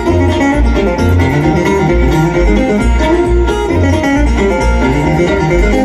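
Bluegrass band playing an instrumental passage between sung lines: picked string instruments over a steady low bass pulse.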